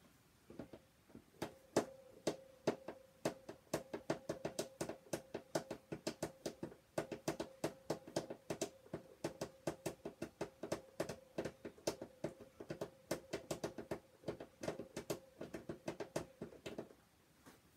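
Small hand screwdriver clicking as it is twisted back and forth in a stubborn screw: rapid, irregular clicks, about four or five a second, over a steady low tone. The clicking stops near the end.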